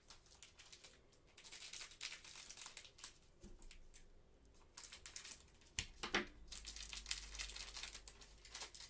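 A trading-card pack's wrapper crinkling and being torn open by hand, in several spells of rustling with a couple of sharp clicks about six seconds in.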